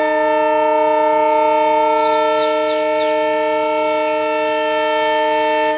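Train locomotive horn sounding one long, steady blast of about six seconds, several tones at once. It cuts off sharply.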